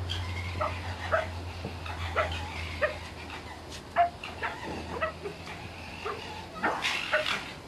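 Fox giving a rapid run of short yelping calls, each dropping in pitch, over a steady low hum.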